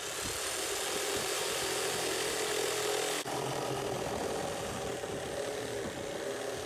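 Reciprocating saw running steadily as its blade cuts a door opening through the wall of a plastic 55-gallon drum, with a brief break about three seconds in.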